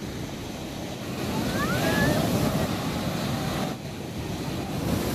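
Ocean surf breaking and washing up the beach, swelling in the middle, with wind buffeting the microphone. A brief high gliding squeal comes about a second and a half in.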